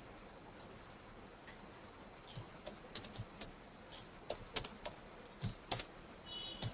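Computer keyboard typing: a quick, irregular run of key clicks starting about two seconds in and stopping shortly before the end.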